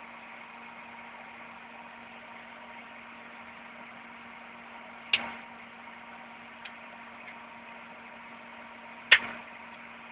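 Fan running with a steady hum. Two sharp clicks cut through it about four seconds apart, the second the loudest.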